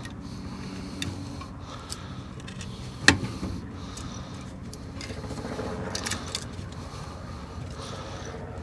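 Small metal clicks and handling noise as a replacement gas valve is turned by hand onto a threaded gas pipe, with one sharp metallic knock about three seconds in, over a steady low hum.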